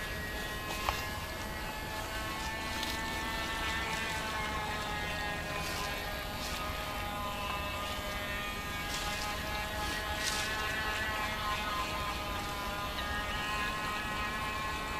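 High-pitched whine of a radio-controlled model speedboat's small electric motor running on the water, steady with its pitch wavering slightly as the throttle changes, with a few faint ticks.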